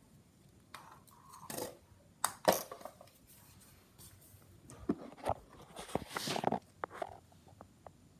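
Irregular handling noises from unpacking: rustling and scraping of packaging with small knocks and clinks of hard parts, loudest around two and a half seconds in and again about six seconds in.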